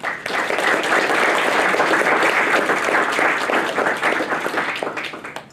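Audience applauding after a talk, starting abruptly and fading out over the last second.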